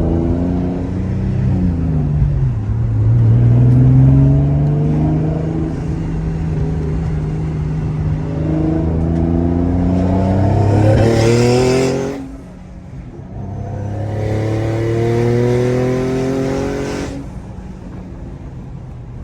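Twin-turbo Infiniti G35's 3.5-litre V6 pulling hard through two long accelerations, its pitch rising steadily, with the revs dropping sharply after each one. A loud hiss of air builds near the end of each pull; the occupants take it for the wastegates venting.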